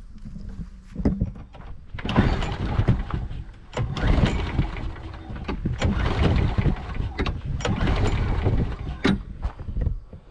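Craftsman 21-inch push mower being pull-started several times in a row, the engine turning over with each pull of the recoil cord but not catching; the owner thinks it may need priming.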